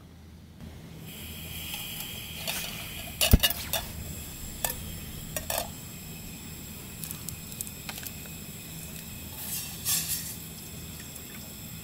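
Camp cooking gear being handled: a metal pot and a plastic water bottle clink and knock several times, the sharpest knock about three seconds in, over a steady high hiss.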